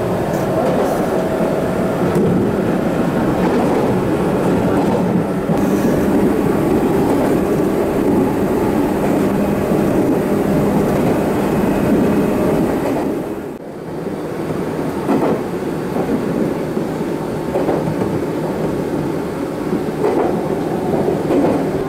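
Meitetsu electric train running, a steady rumble of wheels on rail with some clatter; the sound drops briefly about 13 seconds in, then picks up again with a few short knocks.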